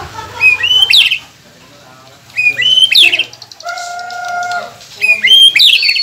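White-rumped shama singing: the same quick phrase of curving, sweeping whistled notes three times, about two seconds apart, with one steady lower note held for about a second between the second and third.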